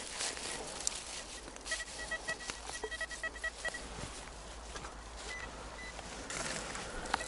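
Metal detector giving a quick run of pulsing beeps for about two seconds, then two short beeps, over rustling and scraping of leaves and soil.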